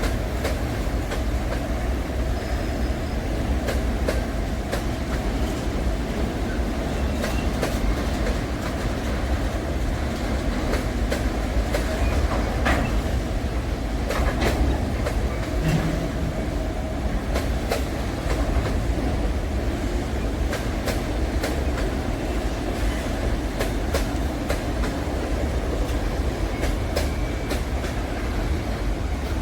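Freight train wagons rolling steadily past, a continuous low rumble with irregular clicks and clacks of wheels over the rails and a few faint, brief wheel squeals.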